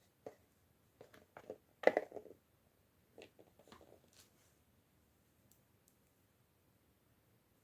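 Small clicks and light clacks of hands handling small plastic toy pieces or packaging: a cluster of taps with the loudest knock about two seconds in, a few more around three to four seconds, then only faint ticks.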